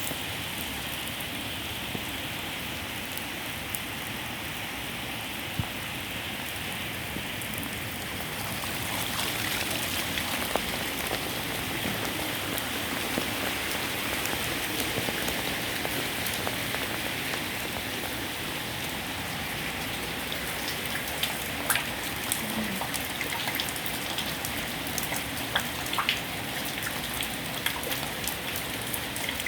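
Heavy pouring rain falling steadily, a little heavier about nine seconds in, with individual drops ticking sharply on a nearby surface, more often in the second half.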